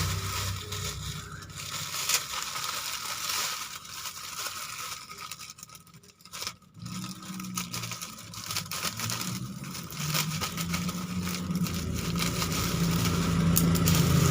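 Plastic parcel packaging crinkling, scraping and tearing as it is opened by hand, with a low steady hum in the second half.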